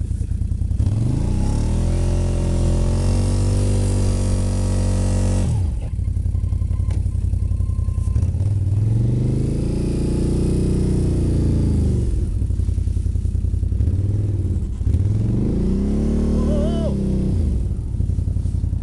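Quad (ATV) engine under way, revving up and dropping back in several long swells as it is ridden through snow.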